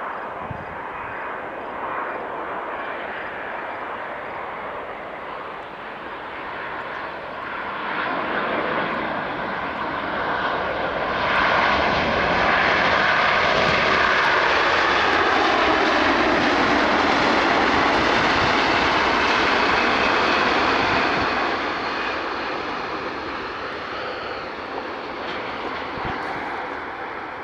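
Jet engines of a landing Boeing 787 twinjet, swelling as it comes down and then rising sharply louder about eleven seconds in as it rolls close by on the runway. A whine falls in pitch as it passes, and the noise then fades away.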